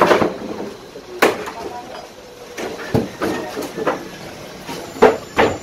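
Wooden boards being knocked and pulled apart as a makeshift wooden structure is dismantled: a few irregular sharp knocks, the two loudest close together near the end.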